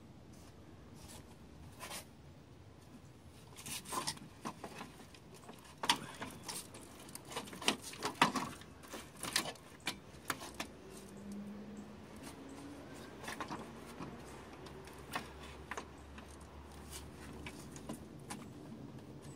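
Scattered clicks, taps and clatter of hands and tools working parts loose in a car's engine bay, as the intake air duct is taken off; busiest in the first half, then sparser.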